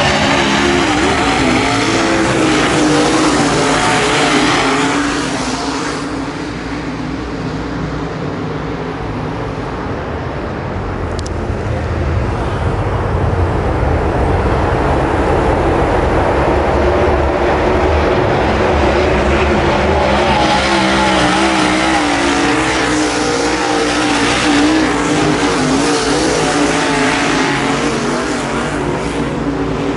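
A pack of dirt late model race cars running at full throttle around a dirt oval, their engines wavering in pitch. The sound is loud as they pass at the start, falls away for several seconds as they go down the far side, then swells again as they come back by.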